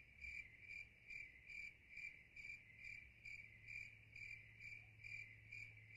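Faint cricket chirping, evenly pulsed at about two chirps a second: the 'crickets' sound effect laid under an unanswered question to mark an awkward silence.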